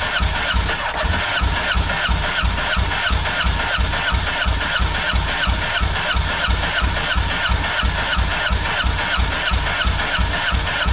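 Yamaha jet boat's four-cylinder four-stroke engine being cranked over on the electric starter with its spark plugs out and throttle closed, not firing: an even, rhythmic chug of about four or five strokes a second. This is a compression test, with the cylinder reading about 180 psi, a healthy figure.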